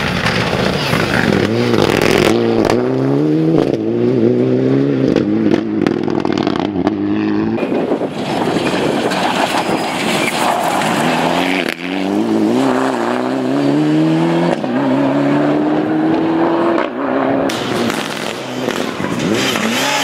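Mitsubishi Lancer Evolution rally car's turbocharged four-cylinder engine revving hard under acceleration. The pitch climbs, drops at each gear change and climbs again, several times over.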